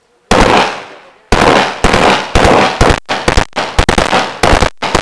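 AK-47 assault rifle firing, very loud: a single shot, then about a second later repeated bursts of rapid automatic fire with brief breaks between them.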